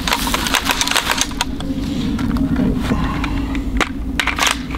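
Clicks and rattles from a Desert Tech MDRx bullpup rifle's action as it is handled and its charging handle worked after a feed malfunction. The clicks come in a quick run at first, then a few single ones, over a steady low hum.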